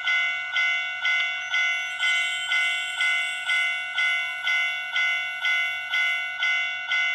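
Electronic bell tone from a sound-making capsule toy's small speaker, striking over and over at about two strikes a second, each ring fading before the next.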